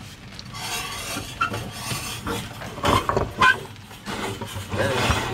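A metal ladle and a wide aluminium pan of stew on a portable gas stove clink and knock a few times as the pan is handled, the loudest knocks about three seconds in, over a steady hiss.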